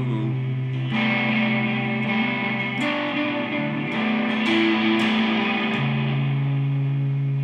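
Instrumental guitar passage: chords strummed and left to ring, with a few sharper strums about three, four and five seconds in.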